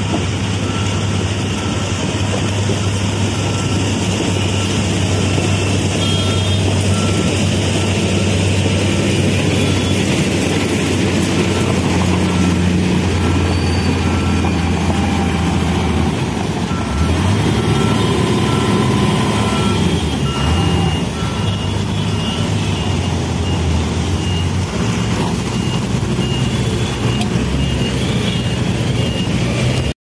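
Diesel engines of heavy construction machines running steadily, with a reversing alarm beeping over and over. Later a higher-pitched reversing beeper takes over.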